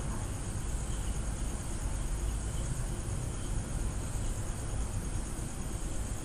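Steady background room noise: a low hum and an even hiss, with a faint high, rapid pulsing running through it.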